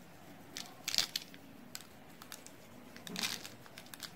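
Faint dry rustling and a few crisp crackles as nigella seeds are sprinkled by hand over pastries on baking paper, with one longer rustle a little after three seconds in.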